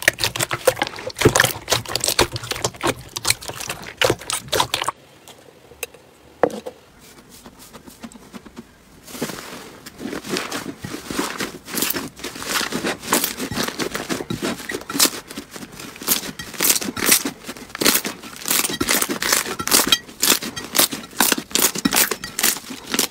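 Hands squeezing and kneading slime: dense runs of wet clicks and crackling pops as air pockets are squished out, with a quieter stretch of a few seconds near the middle.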